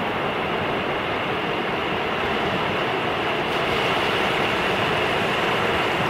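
Small sea waves washing up over a sandy beach and drawing back, a steady rushing wash that grows slightly louder a little past halfway.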